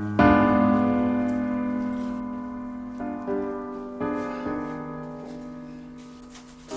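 Background piano music: a loud chord struck and left to ring and fade, then a few more notes and chords come in about three and four seconds later.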